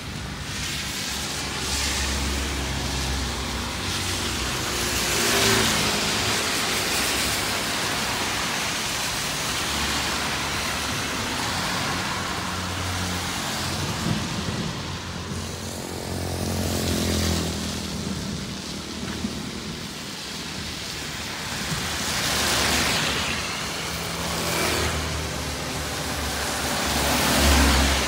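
Cars and motorbikes passing one after another on a rain-wet road, their tyres hissing through the water; the hiss swells and fades about five times over a steady background noise.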